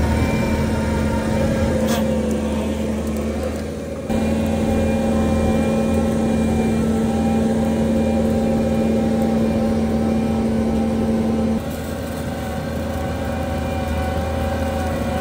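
Skid-steer loader's diesel engine running steadily under load while driving a hydraulic soil-conditioning attachment. The sound changes abruptly twice, about four seconds in and near the end.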